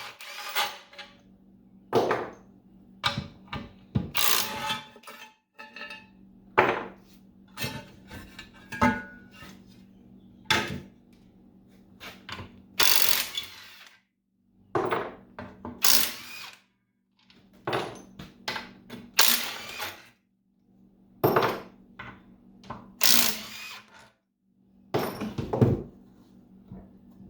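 A power driver running in repeated short bursts, one to two seconds apart, as bolts are backed out of a cast aluminium gearbox housing.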